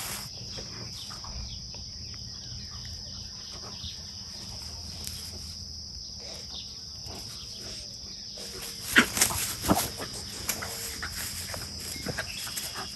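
Two puppies play-wrestling on grass: scuffling, with a few loud sharp sounds about nine to ten seconds in. A steady high-pitched insect drone runs underneath.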